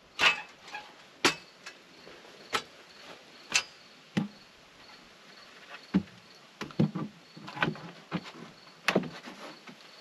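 Wooden trim board knocking and clunking against the house wall and ladder as it is carried and set in place, about a dozen sharp irregular knocks, coming closer together in the second half. Insects trill faintly and steadily underneath.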